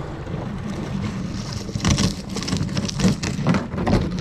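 Strong wind blowing across the microphone on a kayak on open water, gusting unevenly and getting stronger about two seconds in.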